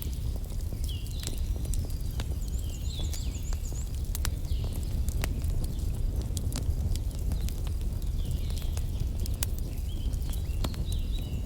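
Wood fire crackling, with frequent sharp pops and snaps over a steady low rumble. Short high chirps recur several times.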